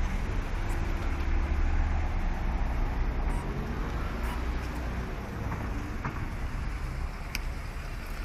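Street traffic noise: a steady low rumble of cars, with a few faint ticks.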